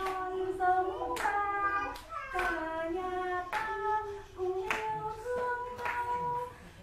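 A woman singing a children's rhyme in long held notes, with a hand clap about once a second keeping the beat.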